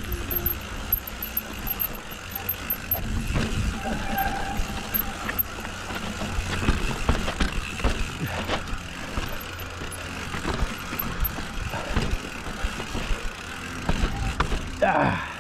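Mountain bike descending a rocky dirt trail: a steady wind rumble on the camera microphone, with tyres crunching over dirt and the bike rattling and knocking over bumps and drops.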